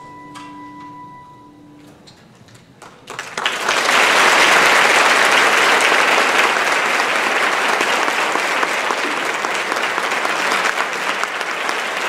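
The last held chord of the music dies away, followed by a short hush. Then audience applause breaks out suddenly about three seconds in and continues, loud and dense.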